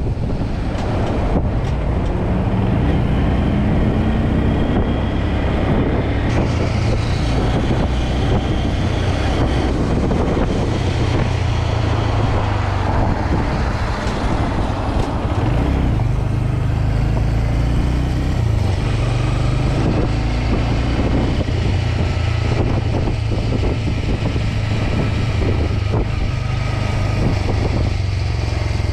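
A small motorbike riding along city streets, heard from its handlebar-mounted camera: heavy, steady wind rumble on the microphone over the bike's running and road noise, with passing traffic.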